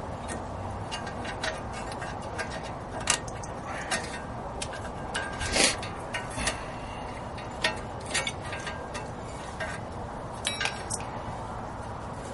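Scattered light metallic clicks and clinks, a few ringing briefly, as tools and metal parts are handled while a new wheel hub assembly is set into place.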